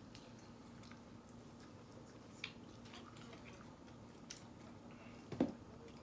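Quiet eating at the table: soft chewing and a few scattered small clicks, with one louder knock about five and a half seconds in, over a faint steady hum.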